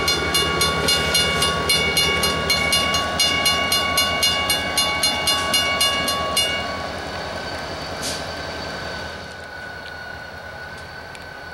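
Grade-crossing warning bell ringing rapidly, about three strokes a second, over the low rumble of a diesel locomotive moving away through the crossing. The bell stops about six and a half seconds in, leaving the fainter engine rumble.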